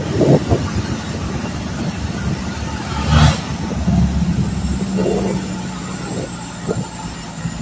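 Truck driving along a dirt road, heard from its cargo bed: steady engine hum with road noise, and one sharp knock about three seconds in.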